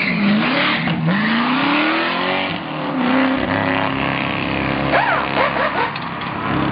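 Race car engine accelerating hard up through the gears. Its pitch climbs, drops at each gear change, and climbs again, then settles to a steadier drone.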